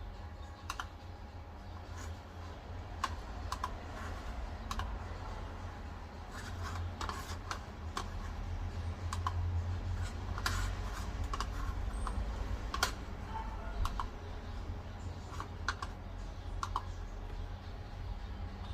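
Irregular light clicks and taps, one or two a second, over a steady low hum.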